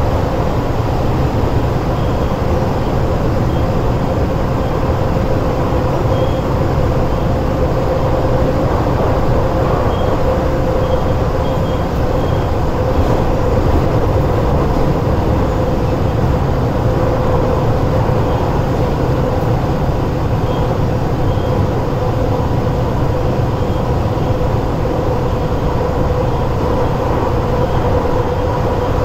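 Metro Cammell EMU (MLR) electric train running at steady speed, heard inside the passenger carriage. Its ageing DC traction motors give it a steady, very bass-heavy rumble with a constant hum over it.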